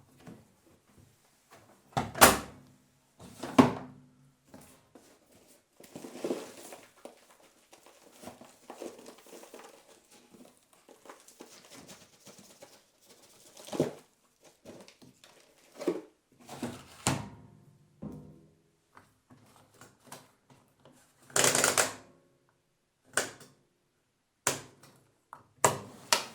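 Automatic washing machine being loaded: irregular thunks and knocks of the door and drum as laundry goes in, with two sharp knocks early and a louder burst lasting about half a second around 21 seconds in.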